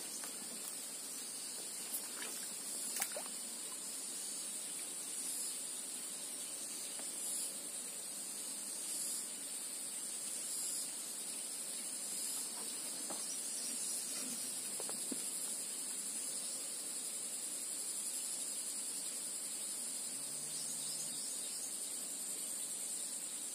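Steady high-pitched insect chorus, a continuous trill, with a couple of faint clicks in the first few seconds.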